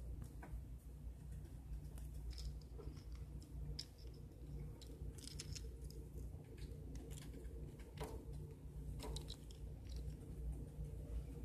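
Pet rats gnawing on dry macaroni shell pasta: faint, irregular crunches and clicks, with a steady low hum underneath.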